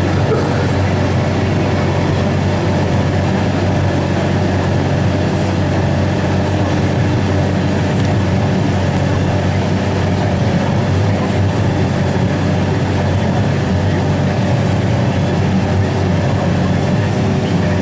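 New Holland T7-210 tractor's six-cylinder diesel running steadily under load while pulling a reversible mouldboard plough through maize stubble.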